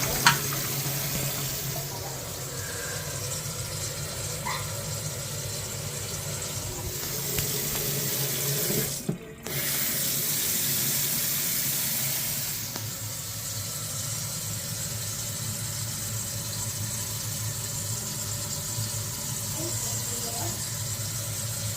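Kitchen faucet running steadily into the sink, filling it with water to test the drain for leaks. The flow breaks off briefly about nine seconds in, and there is a small knock near the start.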